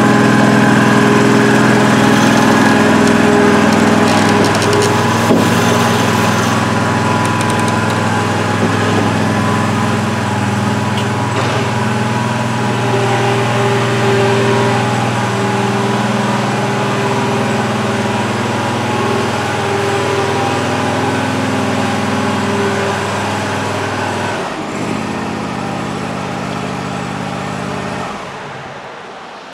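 Scag zero-turn mower's engine running steadily while the mower is driven into the shop, freshly cold-started. The engine shuts off near the end.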